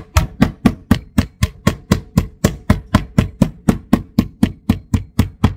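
Small meat-tenderizing hammer with a grid face pounding a thin slice of pork loin: a steady run of sharp strikes, about four a second, flattening the cutlet for schnitzel.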